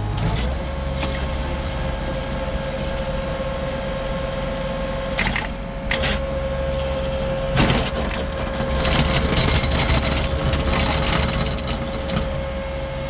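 ASV RT40 compact track loader running with a Harley power rake, its roller churning through dry soil and stones under a steady high mechanical tone. There are sharp knocks about five and seven and a half seconds in, and the grinding grows louder and rougher for a few seconds past the middle.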